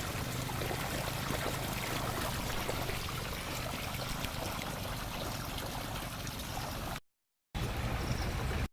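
Pond drainage water rushing steadily out of an underground drain pipe outlet into open ground as the fish pond is being emptied. The sound cuts out abruptly for half a second about seven seconds in, then resumes.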